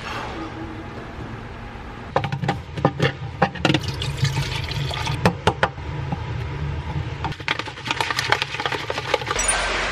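Water poured from a plastic bottle into a plastic shaker cup: about two seconds in, a run of glugging and sloshing starts, laced with sharp clicks and crackles of the plastic, and lasts until near the end.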